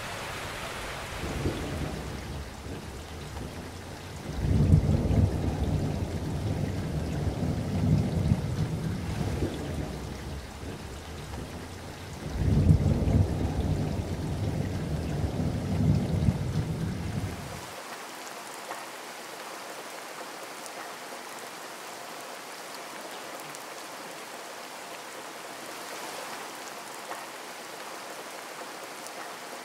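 Steady rushing water noise with two long, deep rumbling swells of about five seconds each. The second swell stops abruptly about two-thirds of the way in, leaving an even hiss.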